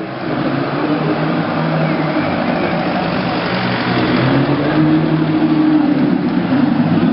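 Novitec Rosso N Largo (tuned Ferrari F12 Berlinetta) V12 engine running steadily, its pitch drifting gently up and down.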